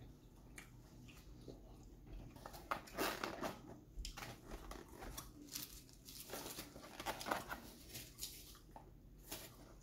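A styrofoam clamshell takeout container being handled and closed by hand: a faint series of short, scratchy foam-on-foam scrapes and rubs.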